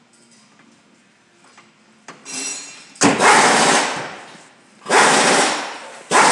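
Air-powered shop tool run in short bursts, four times from about two seconds in, each about a second long, starting sharply and trailing off; the first is weaker.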